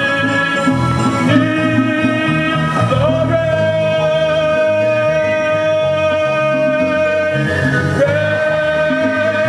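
Musical theatre singing over a band: a voice holds one long sustained note from about three seconds in, then slides into another long held note near the end.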